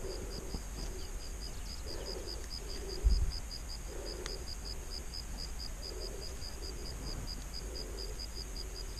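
Steady high-pitched insect chirping, about six chirps a second, keeping up without a break. About three seconds in comes one loud, low thump.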